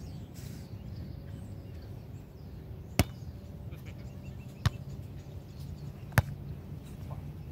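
Hands striking a beach volleyball three times in a rally: sharp slaps about a second and a half apart.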